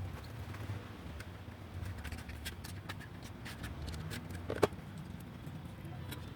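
Small clicks and taps from handling computer parts, with one sharper click about two-thirds of the way in, over a low steady hum.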